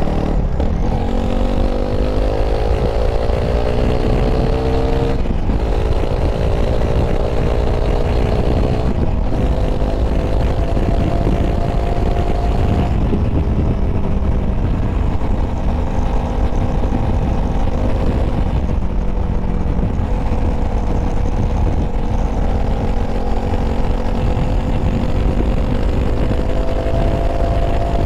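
Honda CRF300L's single-cylinder engine accelerating through the gears, heard from on board: it revs up, drops in pitch at two upshifts in the first ten seconds, then settles to cruising with gentle rises and falls in revs. Heavy wind rumble on the microphone runs underneath.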